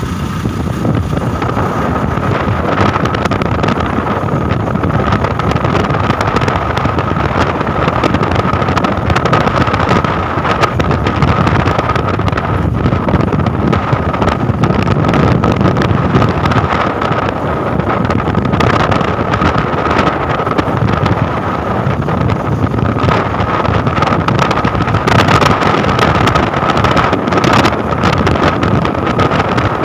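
Wind rushing over the microphone of a moving motorcycle, with its engine running steadily underneath and a faint steady whine.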